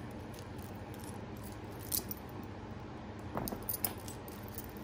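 Faint metallic clinks and clicks of a piece of silver-tone costume jewelry being handled: one sharp click about two seconds in, and a small cluster of clicks around three and a half seconds in.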